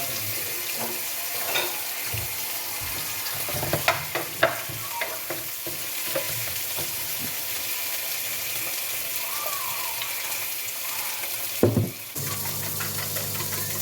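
Food frying in a pan with a steady sizzle, and a few sharp clinks of a utensil about four seconds in.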